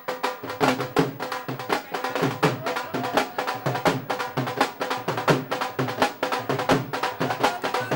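Lively dance music driven by fast, steady drumming, with held instrument tones underneath.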